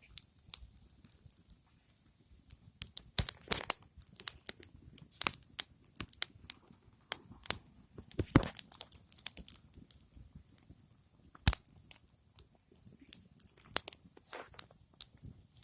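Small wood campfire crackling, with irregular sharp pops and snaps.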